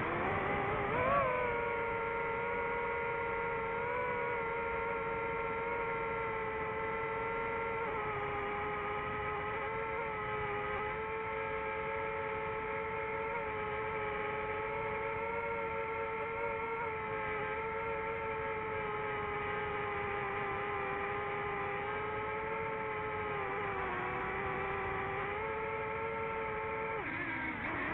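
DJI FPV drone's motors and propellers whining in flight, one steady pitched tone that rises briefly about a second in and wavers lower near the end as the throttle changes.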